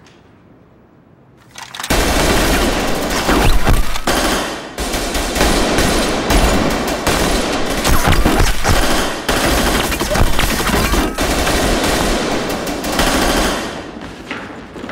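Rapid automatic gunfire that starts suddenly about two seconds in and goes on almost without a break, easing off near the end.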